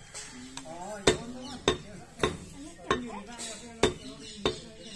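A knife chopping raw chicken on a wooden log chopping block: a string of sharp chops, about six in all, spaced roughly half a second to a second apart.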